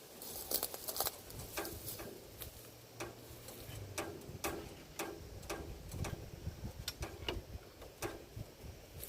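Irregular metallic clicks and knocks, about one or two a second, from hand work on a Woodchuck wood chipper's engine while it is being turned over by hand to check whether it is seized.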